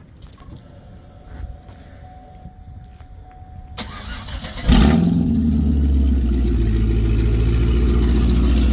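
A car engine is cranked by its starter for about a second, catches with a loud burst, and settles into a steady idle.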